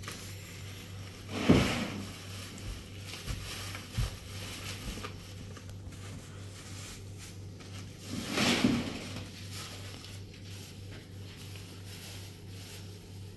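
Rummaging through a plastic basket on a kitchen shelf: small knocks and rustles of items being moved, with two louder clatters, one about a second and a half in and a longer one about eight seconds in.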